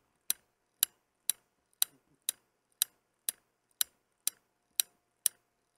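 Clock ticking: sharp, evenly spaced ticks about twice a second, with silence between them.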